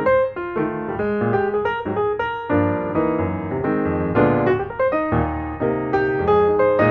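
Background piano music: a steady run of struck notes over chords.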